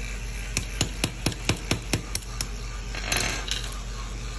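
Small jeweller's hammer tapping about nine times in quick succession, roughly four taps a second, to drive a pin out of a metal watch band link in a plastic holder block. A brief metallic rattle follows about three seconds in.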